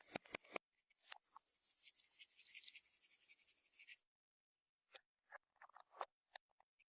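Faint sticky clicks and pops of slime being handled, with about two seconds of fine, high crackling in the middle.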